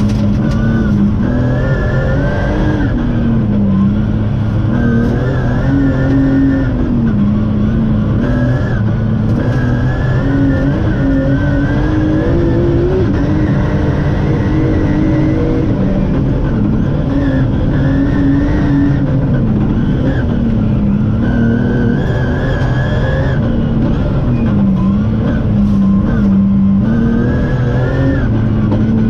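BMW rally car's engine heard from inside the cockpit, its revs climbing and dropping over and over, over steady tyre and road noise on a snow stage.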